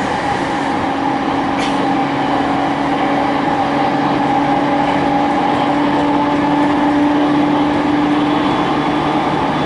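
Interior of a JR East E231-series motor car running at speed: steady whine of the MT73 traction motors and Hitachi IGBT VVVF inverter, in a few held tones over the rumble of wheels on rail. One of the tones fades out near the end.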